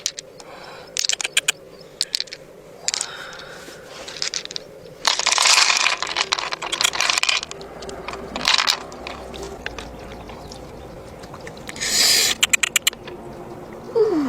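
Small objects being handled: sharp clicks and scrapes, with a longer burst of rustling about five seconds in and another near the end.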